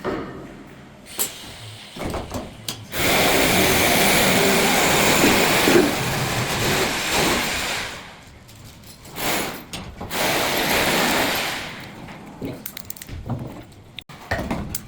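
Power saw cutting through wood in two loud spells, the first about five seconds long starting about three seconds in, the second shorter, with scattered knocks between and around them.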